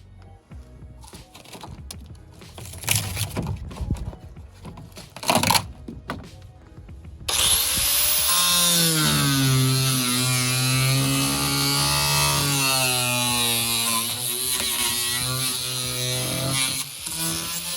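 An electric power saw starts abruptly about seven seconds in and cuts into a boat's wooden floor. Its motor hum rises and falls in pitch as the blade loads up. Before that come scattered knocks and scrapes of work on the floor.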